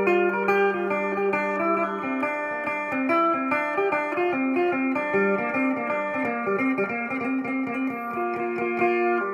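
Phin (Isan lute) picked rapidly, playing a quick melody; a steady drone note sounds under it for the first two seconds and then drops out as the melody moves lower.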